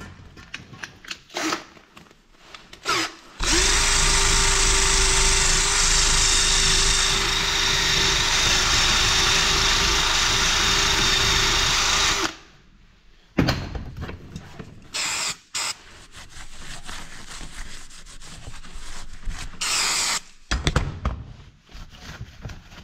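A power tool motor spins up and runs at a steady speed for about nine seconds, with a steady whine. It is followed by a few short bursts of noise and some clicks.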